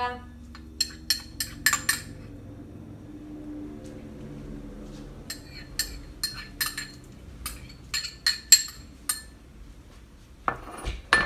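A spoon clinking and scraping against a small bowl and the rim of a cooking pot, in bunches of sharp knocks with short pauses between, as grated onion is spooned out into the pot.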